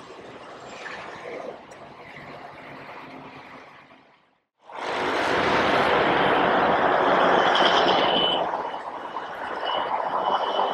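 Faint street traffic, then after a sudden cut loud, steady rushing and splashing water from the plaza's ground fountains, which eases a little near the end before swelling again.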